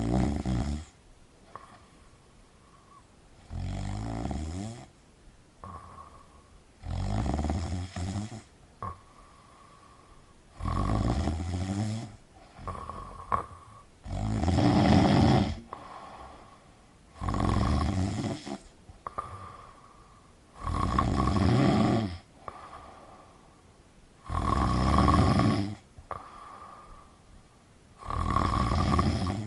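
A person snoring: a rasping snore on each breath about every three and a half seconds, with a softer, higher sound between snores.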